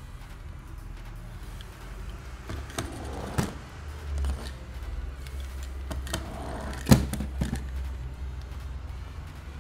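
A small toy car being handled and set down into a cardboard box among other toy cars: several short knocks and clicks, the loudest a sharp knock about seven seconds in.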